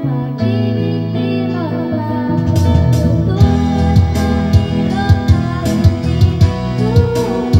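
Videoke backing music: held chords with a melody over them, then a steady drum beat comes in about two and a half seconds in.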